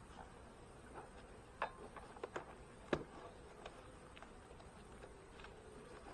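Light, irregular clicks and taps of wooden beehive parts being handled, about a dozen, the sharpest one about three seconds in.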